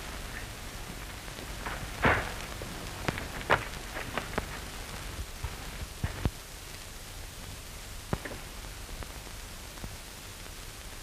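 Steady hiss of an old optical film soundtrack, with scattered crackles and pops; the loudest pops come about two seconds in and again about a second later.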